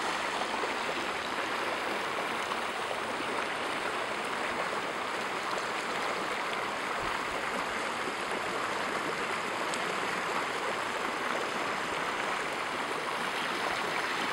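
Flash-flood water rushing across a paved street and spilling over its sandy edge, a steady rushing sound of a heavy, intensifying street flow.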